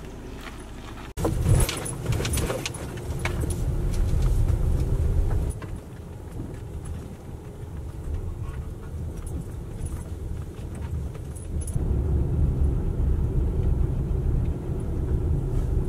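Road and engine noise inside a Jeep's cabin while driving: a steady low rumble with light rattling and jingling. It starts suddenly about a second in, drops lower for several seconds in the middle, then comes back louder near the end.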